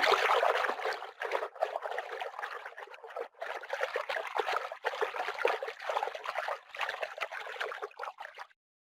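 Running water trickling in an uneven, fluttering flow, cutting off suddenly near the end.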